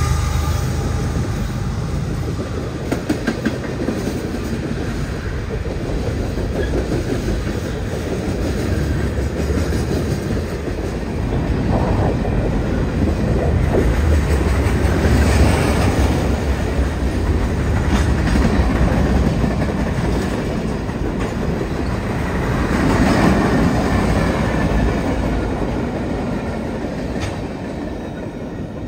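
Freight cars of a mixed train (tank cars, covered hoppers, boxcars) rolling past at speed: a steady rumble of steel wheels on rail with scattered sharp clicks, easing off a little near the end.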